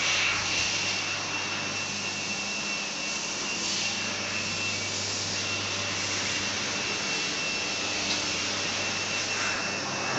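Steady fan noise from the cooling system of a powered-on 1500 W fiber laser welding machine, with a thin high whine and a low hum under it.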